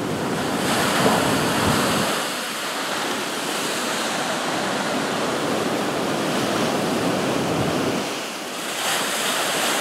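Rough, hurricane-driven ocean surf breaking and foaming below a pier: a steady rush of crashing waves. Wind rumbles on the microphone in the first couple of seconds.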